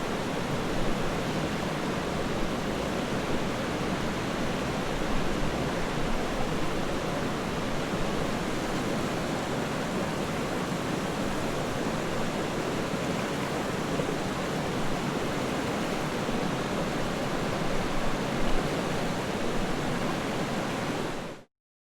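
River water flowing steadily, a constant rushing with no pauses; it cuts off suddenly near the end.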